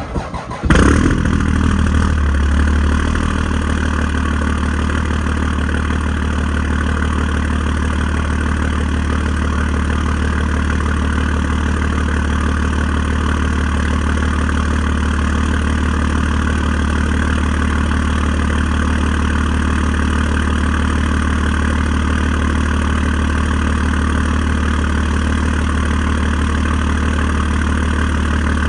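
Cummins diesel pickup truck engine cold-starting after sitting about a week: a short crank, it catches under a second in, runs a little higher for the first couple of seconds, then settles into a steady idle.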